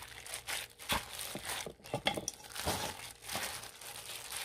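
Banana bread dough being mixed and kneaded by hand in a stainless steel bowl, the hand in a thin plastic glove: irregular crinkling of the glove with soft squishing of banana and dough.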